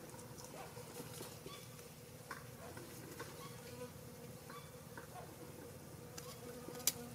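A faint steady insect buzz, with scattered soft ticks and chirps and one sharp click near the end.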